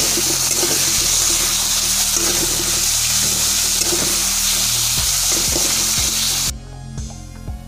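Raw chicken pieces sizzling loudly as they fry in hot mustard oil with browned onions in a wok while being stirred, over background music. About six and a half seconds in the frying sound cuts off suddenly, leaving only the music with a steady beat.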